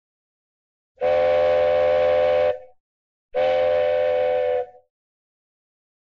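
Cartoon train whistle sound effect: two steady toots, each about a second and a half long, the second starting after a short gap, each trailing off briefly as it stops.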